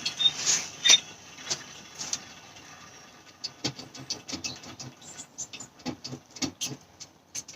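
Hand-pumped oil extractor drawing through the dipstick tube of a Ford 2.0 TDCi diesel, sucking mostly air with irregular slurping crackles, a sign the sump is nearly empty. A few separate clicks at first, then a rapid, irregular crackle from about halfway.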